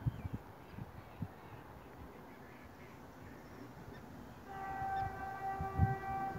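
Horn of the approaching train's locomotive, one steady held note that starts about four and a half seconds in. A few low thumps of wind on the microphone come near the start.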